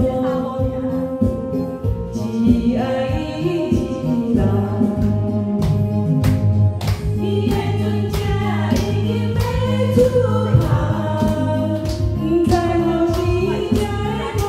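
Karaoke singing: one voice sung into a microphone over a pop backing track with a steady beat, both played through the karaoke room's speakers.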